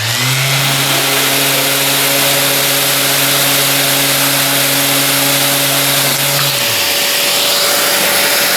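A handheld power tool spins up, runs at a steady pitch for about six and a half seconds, then winds down and stops. A loud steady rushing hiss starts with it and carries on after the tool stops.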